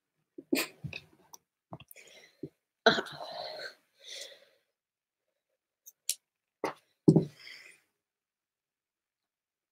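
A string of short, sudden handling noises close to the microphone: knocks, rustles and brief breathy bursts, loudest about three seconds in and again about seven seconds in, with silent gaps between.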